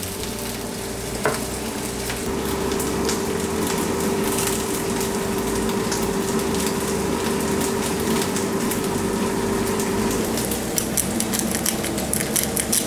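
Tomatillos, onion and chiles sizzling steadily in a hot skillet as they char for a roasted salsa, over a steady hum. A rapid fine crackle comes in over the last two seconds.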